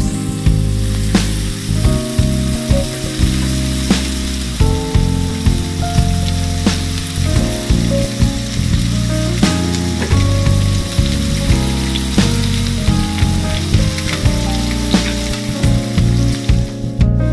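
Diced potatoes, onions and green chillies sizzling steadily in hot oil in a wok, with a few light clicks.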